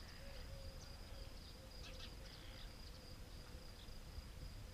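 Faint outdoor ambience: a steady, high, thin insect trill over a low rumble, with a fainter wavering lower hum and a few short chirps about two seconds in.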